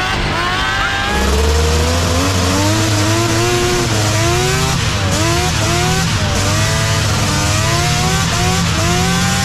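Two-stroke engine of a Can-Am Maverick X3 side-by-side converted to snow tracks, running hard under way, its pitch rising and falling over and over, about once a second, over a steady hiss.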